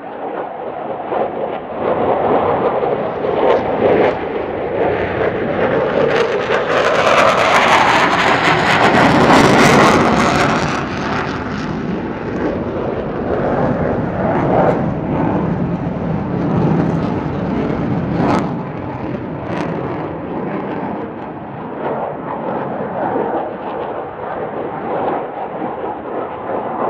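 Jet noise of an F-15 Eagle's twin turbofan engines at high power during a display pass. It swells to its loudest, with a sharp hiss on top, about eight to ten seconds in, then settles to a steadier, slightly quieter rumble.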